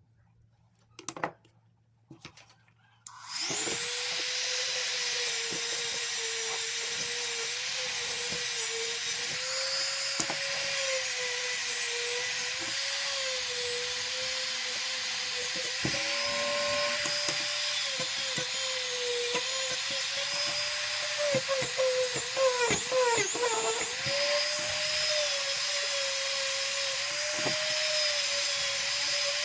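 Dremel rotary tool polishing a pocketknife blade with rubbing compound: a couple of small clicks, then the motor starts about three seconds in and runs as a steady high whine, its pitch wavering slightly as the wheel is pressed on the blade.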